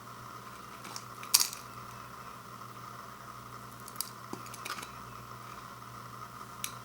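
A few light clicks and taps from handling an instant ramen packet and its dry contents, the sharpest about a second and a half in, over a steady electrical hum.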